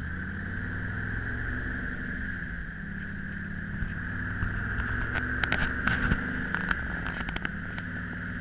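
A 1962 Corvette's 327 V8 running under way with the top down, the engine note steady with a short dip about two and a half seconds in. A steady high whine runs under it, and a scatter of sharp clicks and knocks comes in the middle.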